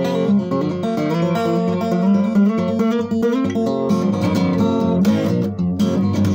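Acoustic guitar fingerpicked in open G tuning: an improvised, steady flow of plucked notes ringing over one another.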